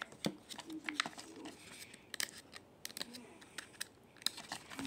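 Foil crinkling and tearing, with light clicks of plastic, as the foil seal is peeled off a Kinder Joy egg's plastic half.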